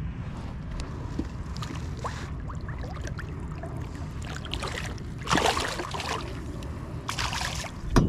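Water splashing and sloshing at the side of a kayak as a weakfish is released by hand, with two louder splashes about five and seven seconds in, over a steady low wind rumble on the microphone.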